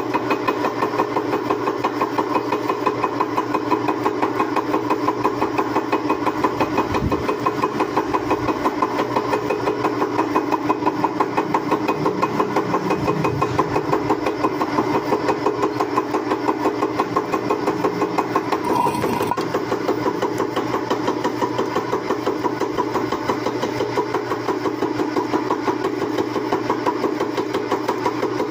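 Milling machine running with a steady hum and a fast, regular pulsing as its improvised 1 mm cutter cuts a narrow groove into a metal workpiece. A short click comes about two-thirds of the way through.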